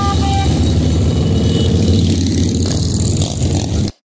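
Motorcycle engines of a rally ride running loud as bikes pass, a deep low rumble with some revving. The sound cuts off suddenly near the end.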